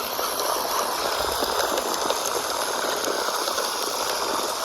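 Traxxas Slash 1/16 RC truck's electric motor running at full throttle with its tyres spinning in loose dirt, a steady hiss of sprayed dirt and small stones over a faint high motor whine: the truck is stuck and digging in.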